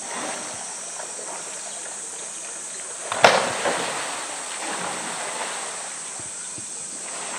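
Polar bear splashing in a pool. About three seconds in, a sudden loud splash as it heaves up out of the water with a plastic float toy against the wall, then a smaller splash and water sloshing as it drops back in.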